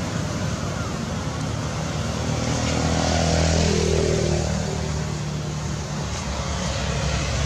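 A motor vehicle's engine running as a steady low hum, growing a little louder about three seconds in with a pitch that falls as it passes.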